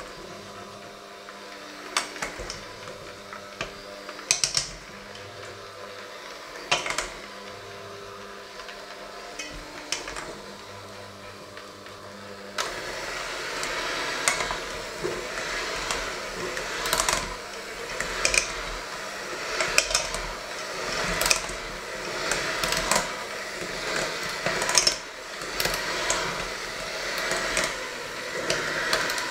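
Electric hand mixer running in a stainless steel bowl, its motor humming steadily, with occasional sharp clicks of the beaters against the bowl. Roughly halfway through it gets louder and harsher, swelling about every second and a half as the beaters work through the thick mixture.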